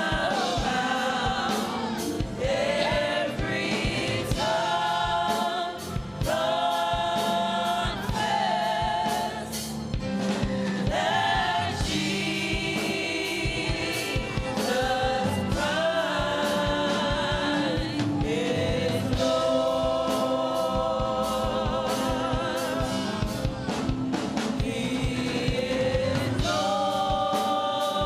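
Gospel worship music: a choir singing held, sustained lines over a band with a steady drum beat.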